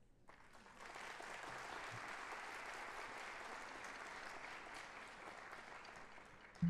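Audience applauding, swelling up over the first second, then steady and easing slightly toward the end. One loud percussive hit comes right at the very end.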